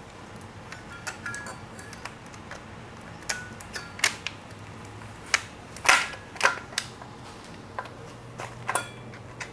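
Metal engine parts and tools clinking and tapping with sharp, irregular clicks, a few ringing briefly, as timing components are handled and fitted by hand.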